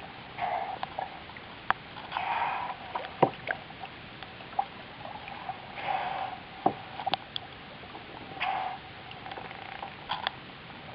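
Short-finned pilot whales blowing at the surface: four short, breathy puffs a couple of seconds apart, with a few light knocks in between.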